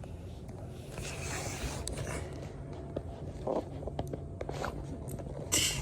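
Rustling and handling noises from searching by hand: a rustle about a second in, a few small clicks, and a short louder scrape near the end, over a steady low hum.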